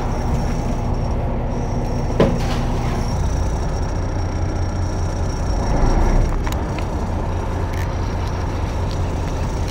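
Fishing boat's engine running steadily with a low hum, with one sharp click about two seconds in and a brief swell a little past halfway.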